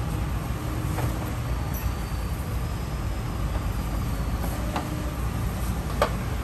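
Steady low rumble, with a few light clicks and knocks of a plastic wheel-arch liner being pushed into place in a car's front wheel arch; the sharpest click comes near the end.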